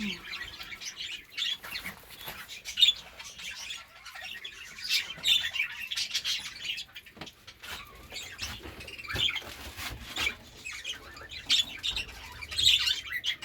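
Budgerigars chattering and chirping steadily, with scattered sharp clicks and knocks.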